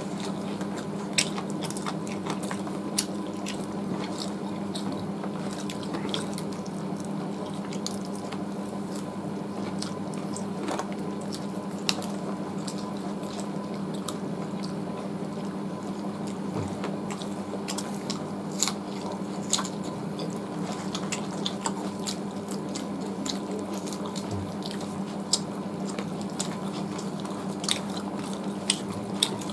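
Two people eating roast chicken by hand: scattered short wet clicks and smacks of chewing and of fingers tearing the meat, over a steady low background hum.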